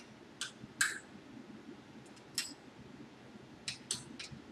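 Steel hand wrenches clicking against bolts and nuts as the mounting bolts are tightened with an Allen wrench and an adjustable wrench: about six sharp metallic clicks at irregular intervals, the loudest about a second in.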